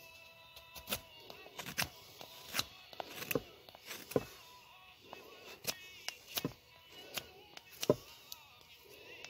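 A Mora knife cutting and shaving wood in short, sharp, irregular strokes as a spatula is carved, with one louder cut near the end. Faint music plays in the background.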